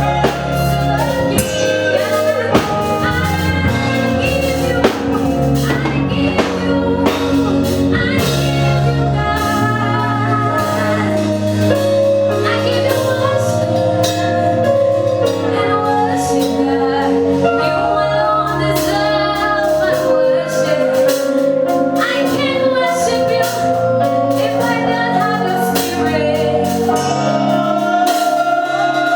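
Gospel worship song: a female singer over a band with drum kit and keyboard, the music running steadily and loud.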